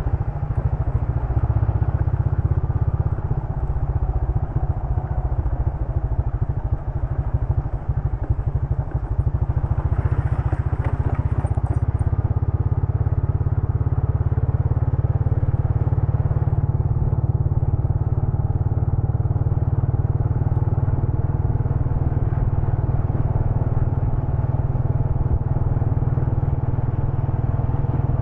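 Motorcycle running as it is ridden along a road, a steady low rumble, with a brief rise in hiss about ten seconds in.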